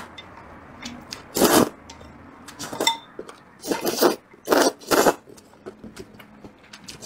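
Slurping sweet potato glass noodles out of a bowl of hot and sour soup: a loud wet slurp about a second and a half in, then a run of three or four slurps around four to five seconds.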